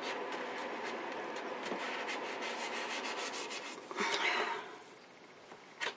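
Paper print being peeled slowly off a Gelli gel printing plate, the tacky acrylic paint letting go with a continuous crackling rustle. A louder rustle comes about four seconds in, and a short click near the end.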